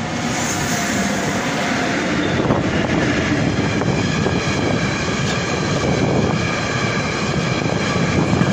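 Freight train passing close by: a Traxx electric locomotive goes past, then empty flat wagons roll by. Steady running noise of wheels on rails, with faint steady high tones over it.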